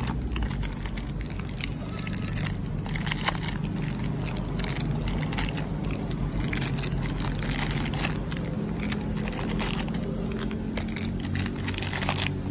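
Small plastic candy wrappers crinkling and rustling in short, irregular bursts as the packets are handled and pushed into a cardboard display box, over a steady low background hum.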